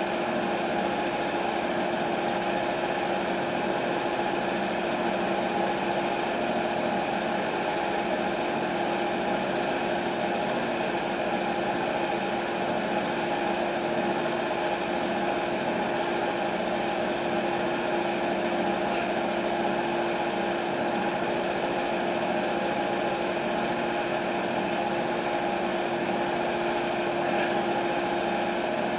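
TimberKing 1220 bandsaw mill's engine idling steadily, with a constant hum and no change in speed, while the blade is not cutting.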